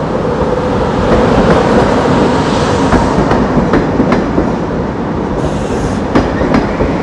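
Double-deck TGV train running along the platform: a steady rumble of the train, with its wheels clicking over rail joints several times in the second half.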